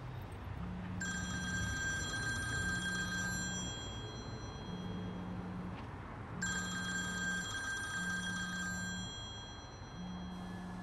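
A telephone ringing twice, each ring a trilling, bell-like tone lasting about two and a half seconds, the second coming about five seconds after the first. Under it, a low tone pulses on and off roughly every second and a half.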